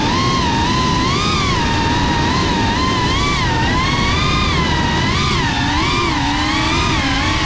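Quadcopter motors and ducted propellers of a GEPRC CineLog35 cinewhoop whining, the pitch rising and falling continuously with throttle, over a steady low rush of noise.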